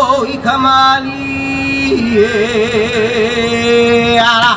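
Hawaiian chant for hula: a voice holding long notes with a strong wavering vibrato, stepping up to a higher held note about two seconds in and breaking off near the end.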